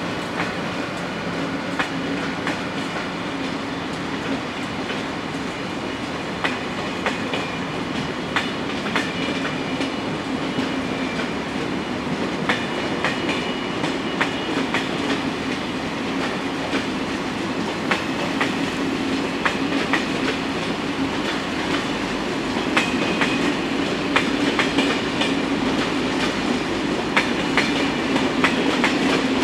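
SNCF Corail passenger coaches rolling past on the station track: a steady rumble of wheels on rail with irregular clicks and knocks as they cross rail joints and points. A faint high wheel squeal comes and goes, and the sound grows a little louder near the end.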